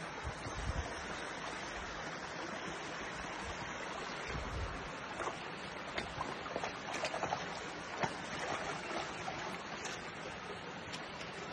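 Small woodland brook running steadily over rocks, with scattered short clicks and splashes, most of them in a run midway through.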